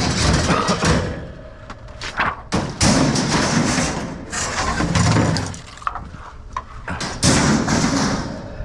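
Salvaged items being handled and moved, with several spells of scraping and rustling punctuated by thumps and knocks.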